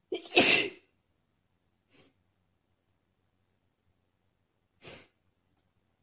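A woman's sneeze right at the start, loud and short, followed by two brief, much quieter breath sounds a couple of seconds and about five seconds in.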